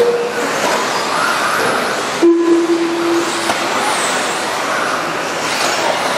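Electric RC trucks racing on a dirt track: motor whines rise and fall over a steady hiss of tyres and running gear. A steady low tone sounds for about a second, a third of the way in.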